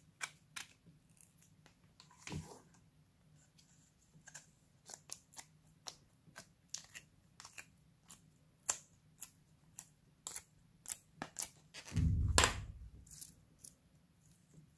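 Fingers handling glossy slime in a plastic heart-shaped mould tray: scattered sharp clicks and sticky crackles, with a longer, louder squish about twelve seconds in.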